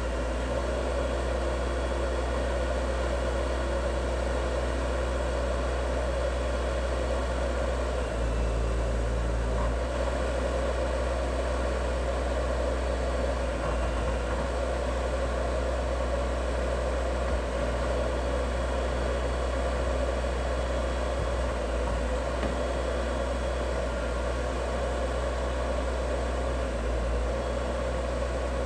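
Boat travel lift's engine and hydraulic drive running steadily while it holds a catamaran in its slings: a constant mechanical drone with several steady tones, its lowest note shifting briefly about eight seconds in.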